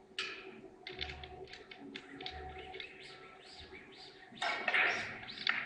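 Cloth rubbed hard on a billiard ball, making a run of short, quick squeaks, with a louder scraping rub near the end.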